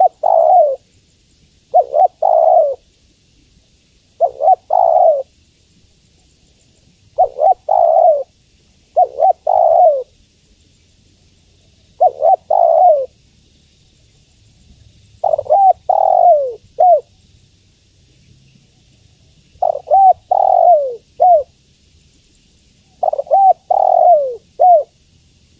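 Spotted dove cooing: short phrases of two to four low coos repeated every two to three seconds, the later phrases ending in a short upturned note. It is offered as a female's call that draws males to answer.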